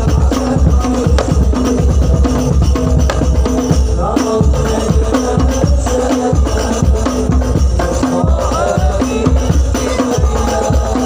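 Instrumental passage of a sholawat group's music: drums and tambourine keep a steady, driving rhythm, with a pitched melody line weaving over it from about four seconds in.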